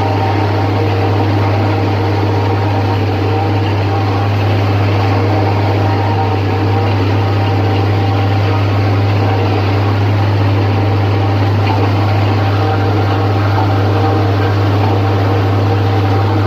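John Deere 4430 tractor's six-cylinder diesel running steadily under load while driving a John Deere 3950 forage harvester chopping corn for silage: a constant drone with a strong low hum and a few steady higher tones.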